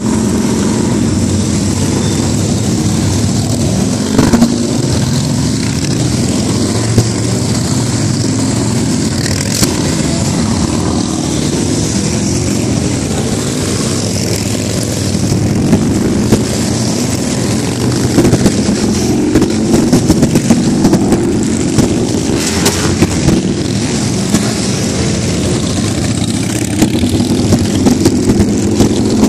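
A group of cruiser motorcycles riding past one after another, their engines running in a continuous loud rumble, with short louder throttle blips here and there, more of them in the second half.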